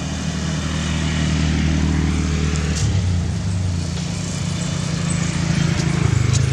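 A motor vehicle's engine running steadily nearby, its note changing about three seconds in.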